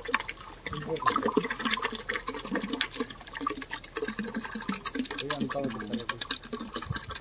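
Thick jeevamrutham slurry (liquid organic fertilizer of dung, jaggery and flour) pouring and splattering out of a woven basket into a plastic barrel, with people talking in the background.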